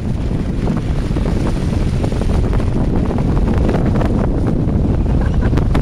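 Wind rushing over the microphone of a camera held from a moving car, a loud, steady low rumble with faint scattered crackles.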